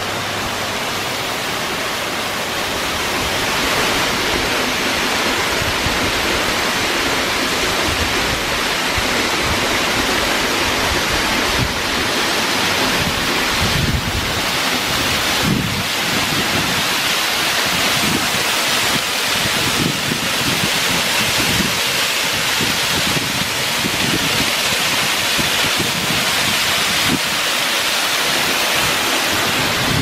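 Steady rushing of a 60 m waterfall's falling water, getting a little louder about three seconds in.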